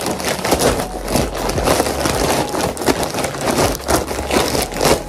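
Grey plastic poly mailer bag crinkling and crackling as it is pulled and torn open by hand, a dense run of rustles and sharp crackles.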